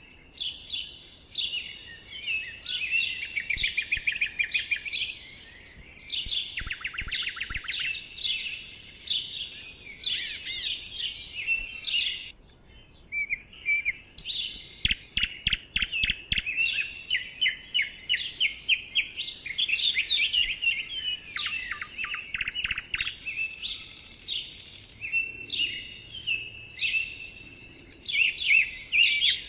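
Songbirds chirping and trilling: a dense, unbroken run of short high calls and rapid trills.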